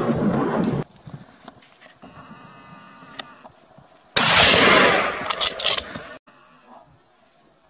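Hunting gunfire: a sudden loud blast about four seconds in, followed by several sharp cracks in quick succession. It opens with the tail of a loud, noisy rushing sound that cuts off under a second in.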